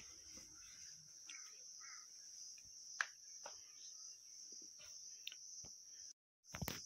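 Faint, steady, high-pitched chirring of insects, with scattered faint clicks and a sharper tap about three seconds in. The sound cuts out for a moment near the end.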